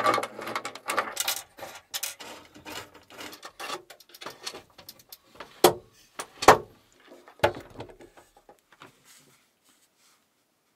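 Carbon fiber wing parts and their mounting hardware being handled and set against each other on a wooden tabletop: a run of clicks, knocks and rustling, with the loudest knocks about six to seven and a half seconds in, dying away near the end.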